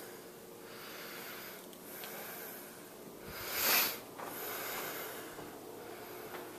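A person breathing heavily: slow, noisy breaths in and out, one much louder than the rest about halfway through, over a faint steady hum.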